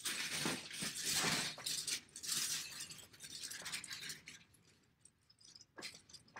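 Hands rummaging through a bin of loose plastic Lego bricks, the pieces clattering and clicking against each other, thinning to a few scattered clicks after about four and a half seconds.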